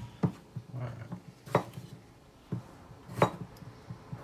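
Kitchen knife cutting through a peeled potato and knocking on a plastic cutting board: about half a dozen sharp, irregularly spaced chops.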